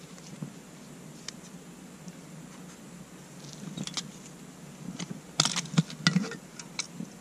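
Scattered small clicks of gear being handled, then a cluster of sharper metal clicks and clanks a little past five seconds in as a green military mess tin's lid is worked open.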